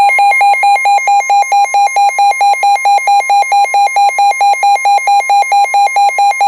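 Midland WR120B weather radio sounding its loud pulsing alert alarm, about five beeps a second, over the steady 1050 Hz NOAA Weather Radio warning tone; it signals an incoming severe thunderstorm warning.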